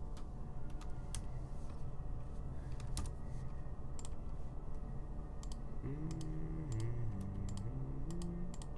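Computer keyboard and mouse clicks, a dozen or so scattered irregular taps, as lines are entered in a CAD drawing program. A steady low hum runs underneath, and a low voice hums briefly near the end.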